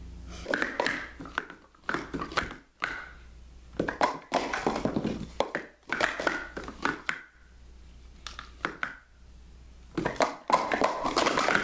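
Plastic sport-stacking cups clattering on a mat as they are stacked up and down at speed, in several quick bursts of rapid clacks and taps with short pauses between them.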